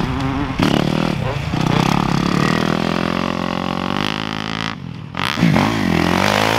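Dirt bike engines revving on a motocross track, the engine note rising and falling with the throttle. The sound drops out briefly about five seconds in, then another bike's engine comes in, its pitch swinging up and down.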